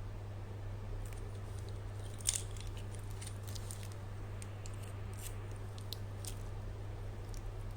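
Unboxing handling noise: scattered small clicks and crinkles, the sharpest about two seconds in, over a steady low hum.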